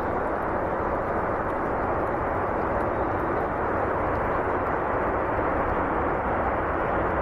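Airbus A380-800 jet engines running on the landing rollout: a loud, steady rush of engine noise with no clear whine.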